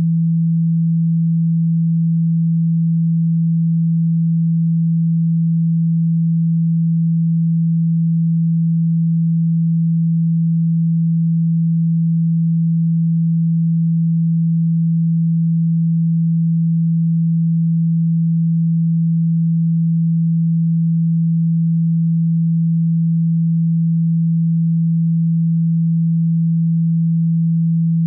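A single low, steady pure tone held without change: a speaker-cleaning tone, played to vibrate the speaker cone and shake water and dust out of a phone speaker.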